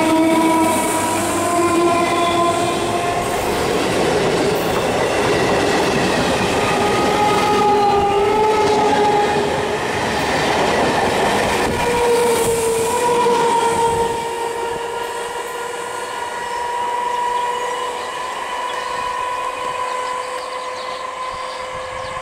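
Electric multiple unit local train running through a station at speed close by, its wheels rumbling and clattering along the passing coaches. About fourteen seconds in, the rumble drops away and a long, steady train horn sounds.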